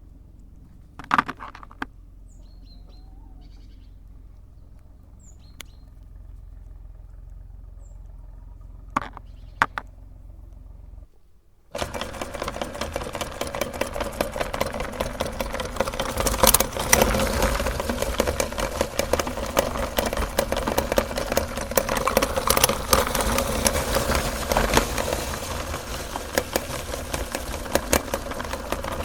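Faint bird chirps and a couple of sharp clicks, then about twelve seconds in a meat grinder's motor starts abruptly and runs loud and steady, crackling as it grinds cookies.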